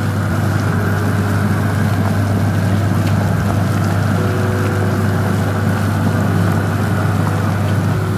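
Pasta water at a rolling boil in a stainless steel pot on a gas burner, bubbling and churning steadily over a low hum.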